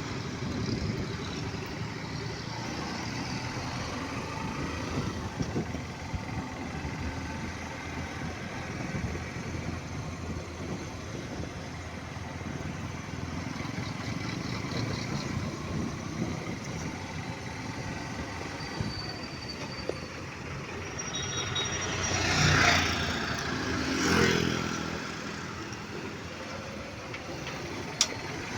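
Road traffic noise: a steady rumble of vehicles, with two vehicles passing close by, one after the other, near the end.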